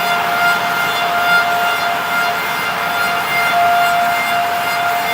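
Bacci T4MO multi-spindle CNC lathe finish-cutting wooden parts: a steady high-pitched whine from the cutting unit over a dense hiss of cutting. The whine fades briefly near the middle and comes back.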